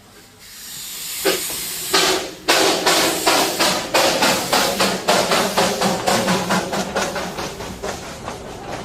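Darjeeling Himalayan Railway steam locomotive getting under way: a hiss of steam builds, then its exhaust chuffs twice and settles into regular chuffing, about three beats a second.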